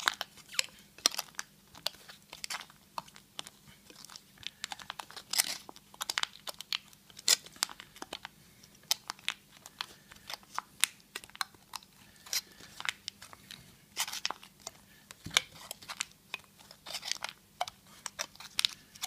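Kaya heavy-duty aluminium hookah foil crinkling and crackling in many irregular sharp crackles as it is stretched tight over a hookah bowl by hand.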